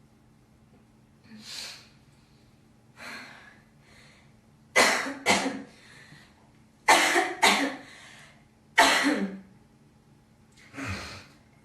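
A girl coughing in separate fits. Two soft coughs come first, then loud, sharp coughs: two quick pairs and a single one. A softer cough comes near the end.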